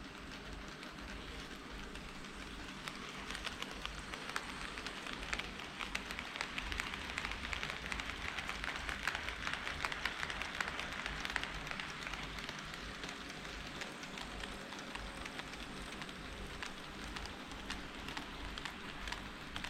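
HO-scale KATO D51 steam locomotive model running on track: a dense crackle of small clicks from the wheels on the rails that grows louder toward the middle, as it passes closest, then eases off.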